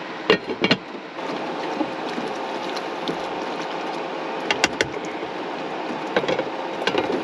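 Lidded pan of tomato sauce simmering on an induction cooktop, with a steady hiss and a faint hum, getting louder about a second in. A few sharp clicks and knocks come near the start, about four and a half seconds in and near the end.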